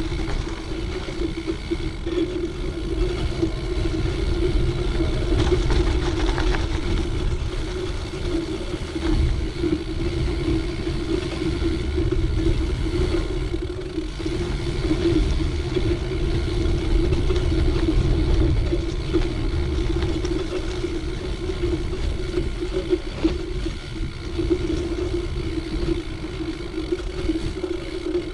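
Cyclocross bike riding along a hard-packed forest trail: a steady tyre hum over a continuous low rumble from the bike running over the ground, with a few light knocks.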